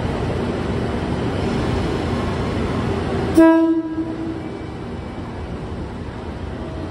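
KiHa 185 series diesel train rumbling at the platform, with a single short, loud horn toot about three and a half seconds in that signals its departure.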